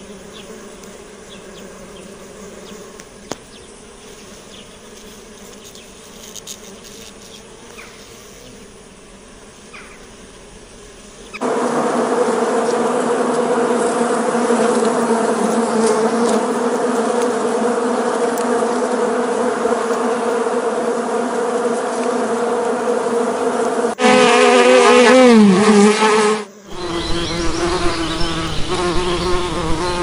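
Bees buzzing: a faint hum at first, then a loud, steady buzz from about eleven seconds in. Near the end a close bee's buzz wavers and drops in pitch, cuts off abruptly, then resumes with a light pulsing about twice a second.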